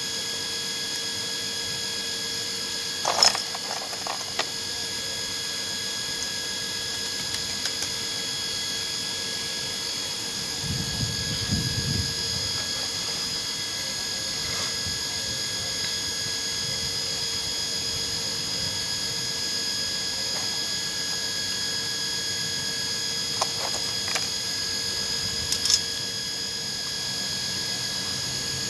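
A steady machine-like whine made of several fixed tones runs throughout. Over it come a few sharp clicks of a toy model car's small parts being handled, about three seconds in and twice near the end, and a brief low rumble about eleven seconds in.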